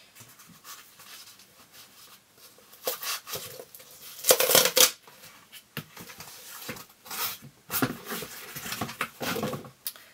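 A small mailed package being torn open by hand: irregular bursts of tearing and rustling packaging, the loudest about four and a half seconds in.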